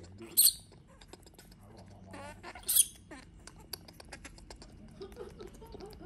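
Baby macaque giving short high-pitched squeaks, two sharp ones about half a second and nearly three seconds in, with a brief wavering call between them, over soft rustling and small clicks: a young monkey begging to be held.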